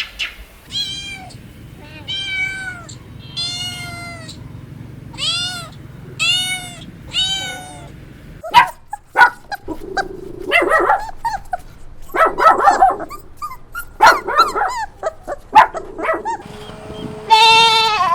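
Domestic cat meowing: six rising-and-falling meows about a second apart, then several seconds of rougher, scratchier cat calls. Near the end a bleat starts.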